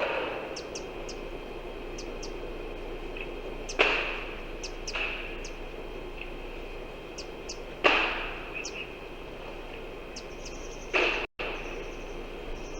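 Outdoor ambience: birds giving short high chirps over a steady insect drone. Sudden rushing swishes come in a few times, each dying away within about a second, and a brief dropout follows the last one.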